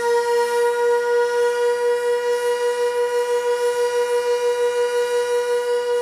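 Sentry 16V1T-B outdoor warning siren sounding its full-attack signal, holding one loud steady tone at a constant pitch.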